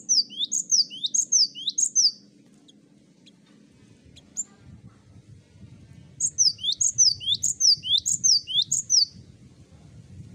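Cinereous tit (gelatik batu) singing: a quick, repeated two-part phrase of a sharp high note and a falling whistle, in two bouts, one at the start and another a few seconds later after a pause.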